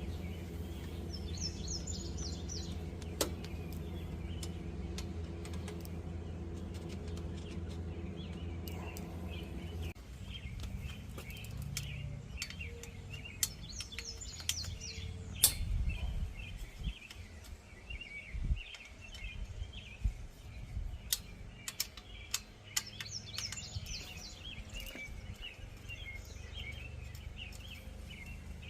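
Birds chirping and singing over and over, with a few trilling phrases. A steady low hum runs underneath and stops about ten seconds in, and scattered sharp clicks and taps come through.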